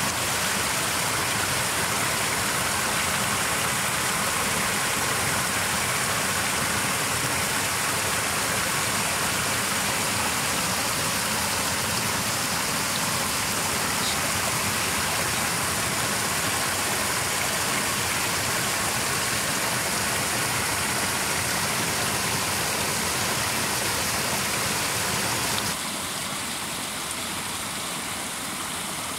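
Steady rush of water pouring over an earth bank into a shallow muddy pit, a little quieter near the end.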